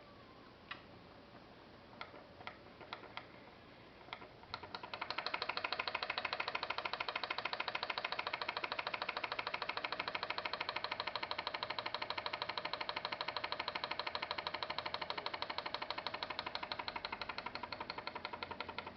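Homemade pop-pop boat engine, a quartz-tube boiler with a water-balloon diaphragm over a cut plastic pipette, getting going: a few scattered pops at first, then from about five seconds in a fast, steady pulsing of the diaphragm.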